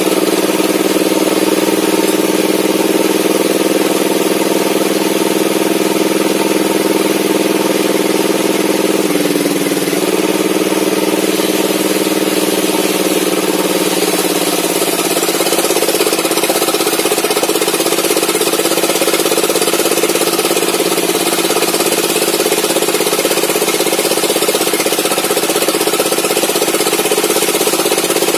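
Homemade sawmill table saw running steadily, its large circular blade ripping old mahogany timber, over the constant drone of the engine that drives it. The pitch dips briefly about nine seconds in.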